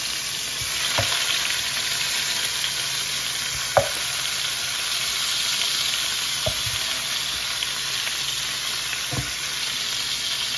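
Seasoned chicken drumsticks frying in hot grease in a 12-inch electric skillet: a steady sizzle, with four short knocks as more drumsticks are set into the pan, the loudest about four seconds in.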